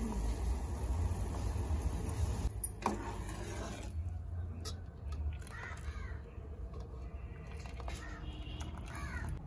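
Steel skimmer clinking against a steel pot as it stirs bubbling water, with a sharp metallic knock a few seconds in. A crow caws twice in the background over a low, steady rumble.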